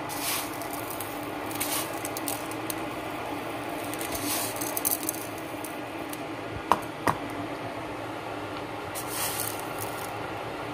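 Pot of chorba soup cooking on the stove: a steady hissing simmer. Two sharp clicks come about two-thirds of the way through.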